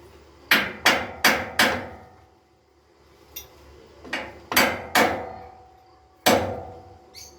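Hand hammer striking, probably building work on an outdoor kitchen: a run of four quick blows, then a few more spaced blows, each with a short ring.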